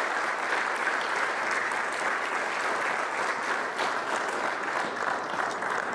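Wedding congregation applauding steadily, a dense patter of many hands clapping.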